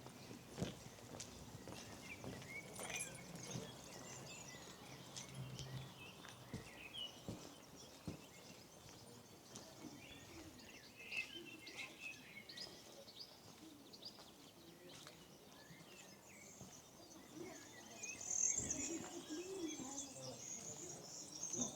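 Quiet outdoor village ambience with small birds chirping now and then, and a high chattering trill from about three-quarters of the way through.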